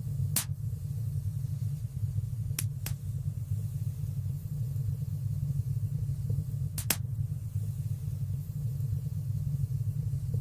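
Wood fire burning in a fireplace: a steady low rumble of the flames with a few sharp, sparse pops and crackles, two close together a few seconds in and a double pop about two-thirds of the way through.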